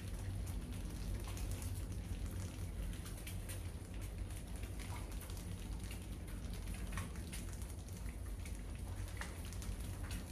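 Many rodents scrabbling and scurrying on a wire-mesh cage trap and a tile floor, giving a constant light patter of small clicks and scratches over a low steady hum.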